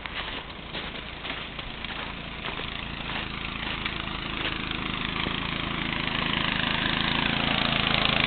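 An engine running steadily and growing gradually louder, with scattered sharp clicks in the first few seconds.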